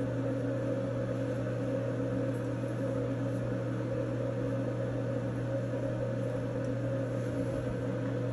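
Bathroom exhaust fan running with a steady, even hum.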